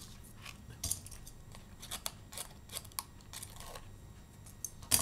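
Paper and card being handled on a cutting mat: a scattered string of short rustles and light taps as the pieces are lifted, positioned and pressed together, the loudest tap near the end.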